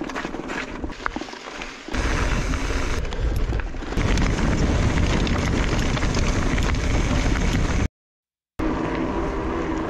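Mountain bike rolling over cobbles and a rocky gravel track: tyres crunching and rattling over stones, with a heavy rumble of wind and vibration on the camera microphone. The sound cuts out for under a second near the end, then returns as a steadier humming rolling noise.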